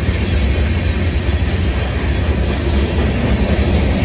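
Freight cars of a long mixed manifest train rolling slowly past, a steady low rumble of steel wheels on rail.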